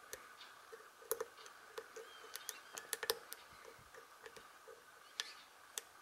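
Irregular small metallic clicks and scrapes of a hook pick working the spring-loaded pins inside an American 1100 series padlock's core.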